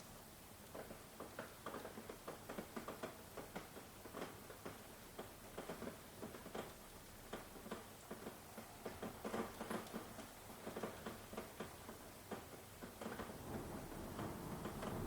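Rain falling, with many irregular drips and taps over a steady hiss. A low rumble swells near the end.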